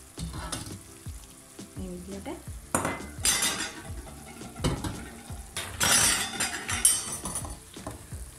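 Spaghetti being stirred and tossed through a sizzling tomato sauce in a nonstick frying pan, with a utensil knocking and scraping against the pan. The sizzle and scraping swell loudly twice, about three seconds and six seconds in.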